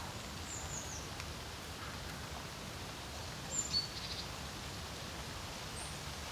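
Steady wind over a lake, with a low rumble, and a few brief high songbird calls: a falling chirp about half a second in, then a short call and a quick trill near the middle.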